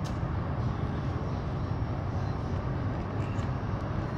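Steady low outdoor rumble, with a few faint snips of aviation tin snips cutting through a plastic flashing corner near the start and a little past three seconds in, and a sharper snip at the very end.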